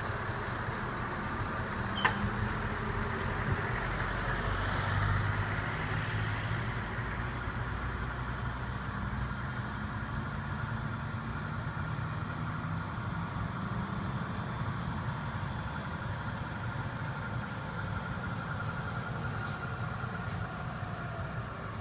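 Heavy lorry diesel engines running steadily as articulated lorries move past at low speed, over constant traffic noise. Two sharp clicks, one about two seconds in and another a second and a half later.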